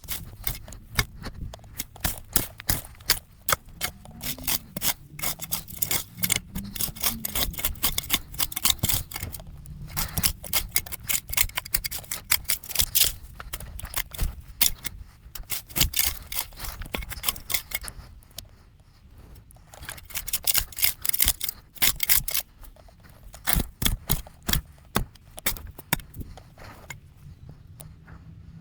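Overgrown plants being torn out and cleared from a dirt landing: dense, irregular crackling, snapping and scraping, with a couple of brief lulls.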